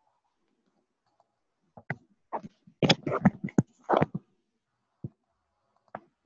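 Computer keyboard keys struck in a quick, irregular run, with two single key clicks near the end.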